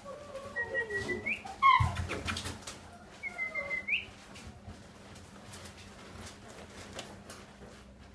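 French Bulldog x Lhasa Apso puppy whining and whimpering: thin high whines, two of them rising at the end, and a short sharp yelp about two seconds in. It goes quieter after about four seconds.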